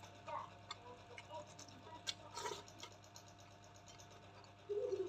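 Soft eating sounds: scattered small clicks and smacks of chewing and of food being handled, over a steady low hum.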